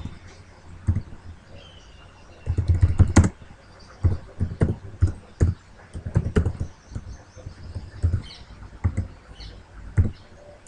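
Computer keyboard keystrokes as a command is typed, irregular single key clicks with a quicker run of keys about three seconds in.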